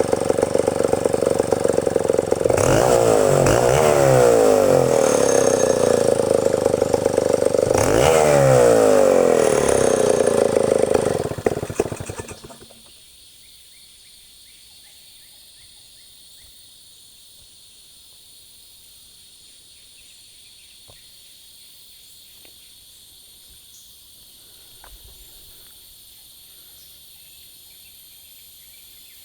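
Stihl 070 two-stroke chainsaw running, revved up twice, then shut off about twelve seconds in. After that, insects keep up a steady high chirring.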